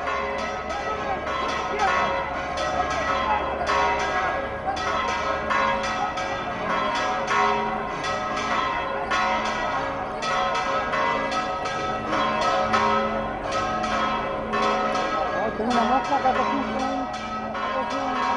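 Church bells pealing, struck rapidly and continuously, their several tones overlapping, over the noise of a crowd.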